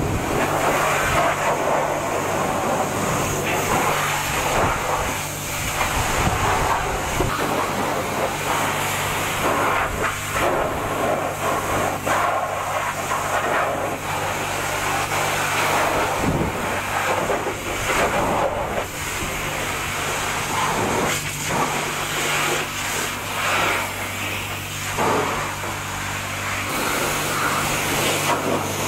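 High-pressure washer jet spraying water against a car's underbody, a steady hiss with water splashing, over a constant low hum from the washer pump.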